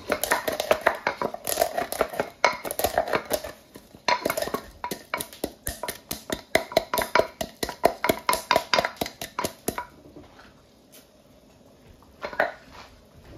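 A utensil stirring a large pot of soup, clinking and scraping against the pot several times a second for about ten seconds before it stops, with one more short clatter near the end.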